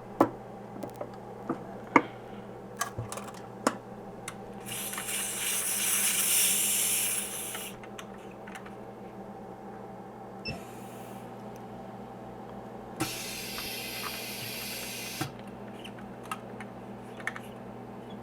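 Sharp clicks and knocks as a screen laminator is loaded and shut, then hissing air from the laminator in three spells, a long loud one, a short faint one and one of about two seconds, over a steady machine hum.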